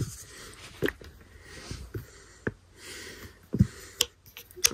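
A handful of separate light clicks and knocks, spread through the few seconds, from a plastic shampoo bottle being handled and poured over a plastic tub of slime.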